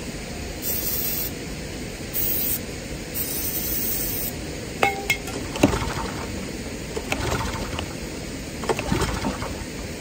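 An aerosol can sprayed in three short hisses at a wing mower's small petrol engine. Its recoil starter is then pulled about three times, each pull a rattling clatter, without the engine catching: a hard-starting engine that the owner suspects flooded from being tilted.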